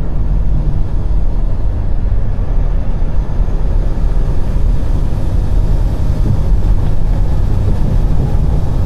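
Steady, loud, low rumble of a vehicle under way, a deep, even noise with no clear pitch.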